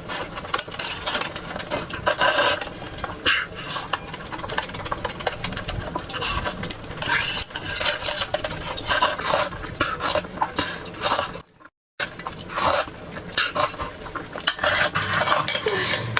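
Close-miked mukbang eating sounds: a spoon or chopsticks clicking and scraping in a dish, with chewing and mouth sounds, irregular and continuous. A short gap of silence falls about eleven and a half seconds in.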